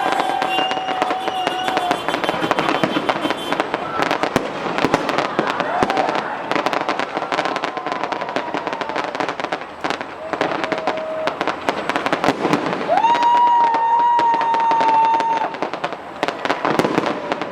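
Fireworks display: a dense run of bangs and crackling from bursting shells, with a few held whistle-like tones lasting a couple of seconds each among them.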